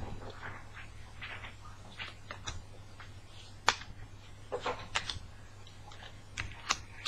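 Trading cards being handled and flipped through: scattered light clicks and taps of card stock, the sharpest about halfway through, over a faint steady low hum.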